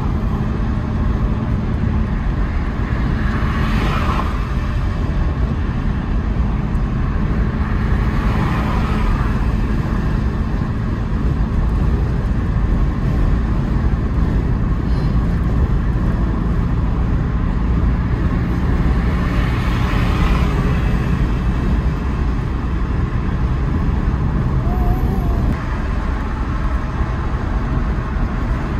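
Car driving at highway speed: steady road and tyre rumble with engine noise, swelling briefly about three times.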